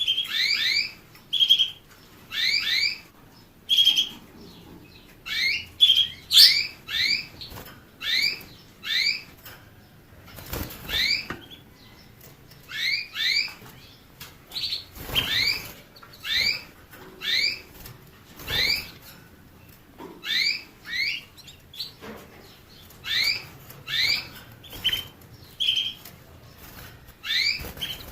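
A small finch calling with repeated short rising chirps, often in pairs, about one group a second. A few brief rustles, the loudest near the middle, are mixed in.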